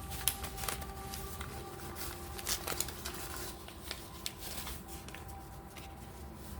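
A deck of oracle cards being shuffled and handled: an irregular run of light card flicks and clicks.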